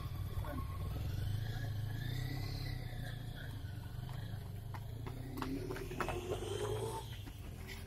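Running footsteps slapping on asphalt as runners pass close by, clearest in the second half, over a steady low rumble.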